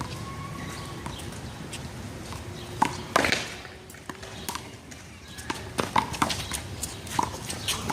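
A one-wall handball rally: a series of sharp, irregular slaps and smacks as the rubber ball is hit by hand and strikes the wall and the pavement. The loudest hit comes about three seconds in.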